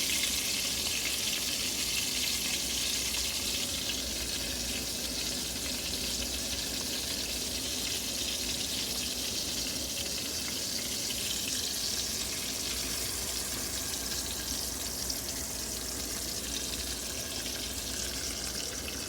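Flour-battered trout fillet sizzling in a pan of hot butter and oil: a steady frying hiss that eases slightly over the stretch.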